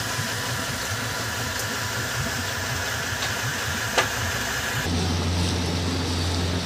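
Boat outboard motor idling steadily, with a single sharp click about four seconds in. About five seconds in the sound changes to a deeper, steadier engine drone.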